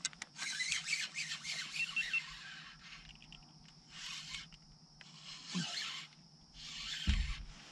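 Fishing reel being cranked in spurts: a rasping whir in four runs, the first about two seconds long and the others shorter. A dull knock comes near the end.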